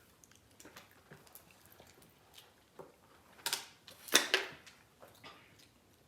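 Quiet eating noises from someone working through hot wings: small scattered clicks and mouth sounds, with two short breathy bursts, like sharp breaths or sniffs, a little past halfway.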